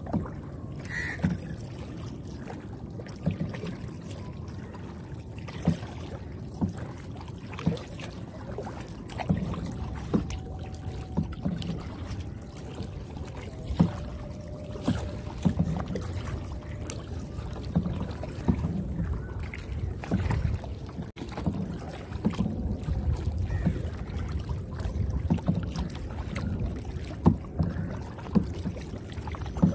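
Kayak paddling on calm water: the paddle dips, splashes and knocks irregularly every second or two over a steady low rumble.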